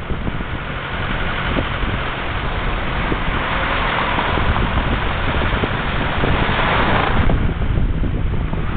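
Road and wind noise from a moving vehicle: a steady low rumble with wind buffeting the microphone. A louder hiss comes in about three seconds in and cuts off sharply about seven seconds in.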